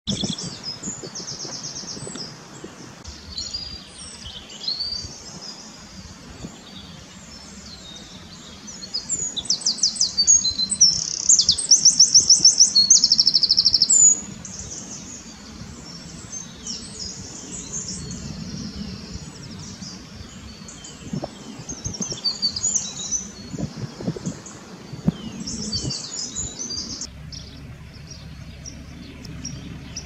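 Eurasian wren singing: loud, high-pitched, very fast trills and rattling note series, loudest from about nine to fourteen seconds in, with shorter bursts of song before and after.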